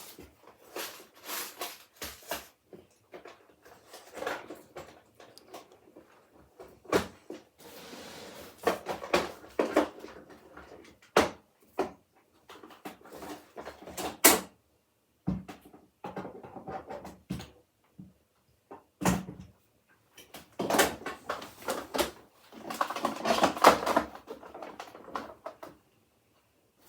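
Hands handling and rummaging through hard objects: irregular knocks and clicks with stretches of rustling and scraping, several sharp knocks standing out. No power tool runs.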